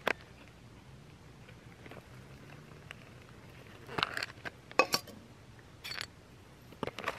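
Handling of a foil freeze-dried meal pouch and a Jetboil cooking cup as hot water is poured into the pouch: quiet, then a few short crinkles and light knocks about four and five seconds in, and again near the end.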